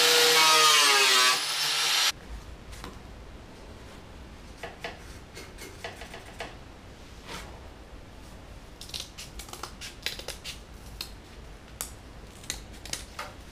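Small cut-off tool with a thin cutting wheel running against the fender's sheet metal, a steady whine with a hiss, its pitch dropping as it winds down before stopping about two seconds in. After that, scattered light clicks and taps of hand tools and metal pieces being handled.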